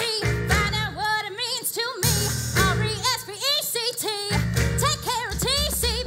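A woman singing lead in a 1960s-style pop song, backed by a live band, the sung line wavering in pitch over a steady low accompaniment.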